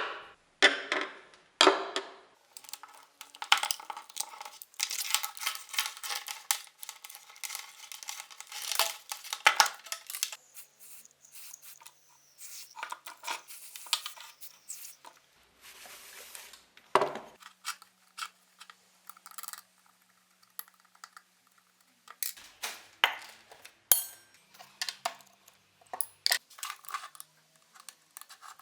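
Metal tools and small metal parts clinking, clattering and scraping as they are handled on a workbench, in irregular knocks.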